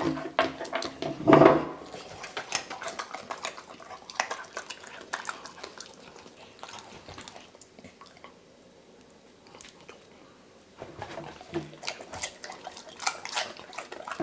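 Golden retriever crunching a piece of raw vegetable: a run of short, crisp crunches, a few seconds' pause, then more crunching. A brief louder sound comes about a second and a half in.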